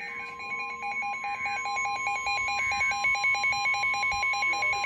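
NOAA Weather Radio warning alarm tone: a steady, loud, single high beep. It begins right after the previous message ends and announces a new warning broadcast. A second electronic alert sounds over it in rapid, regular beeping pulses.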